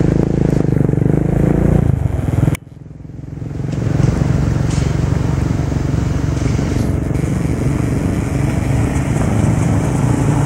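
Dual-sport motorcycles running on a dirt road, their engines a steady drone. The sound drops off abruptly about two and a half seconds in, then builds again as the bikes ride up.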